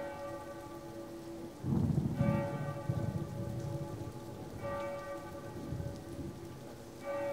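Steady rain, with a church bell tolling slowly: a stroke about every two and a half seconds, each ringing on. A low rumble comes about two seconds in and is the loudest sound.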